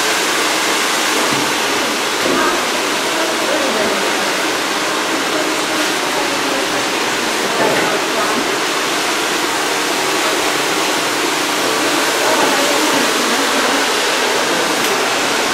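Hair dryer running steadily, a loud even rushing noise with no breaks, with faint murmured voices beneath it.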